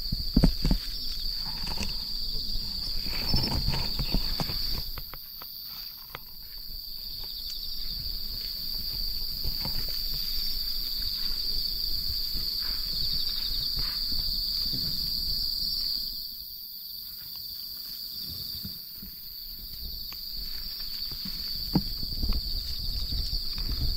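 A steady, high-pitched insect chorus, like crickets singing, with the rustle of leaves and low knocks close by that come and go.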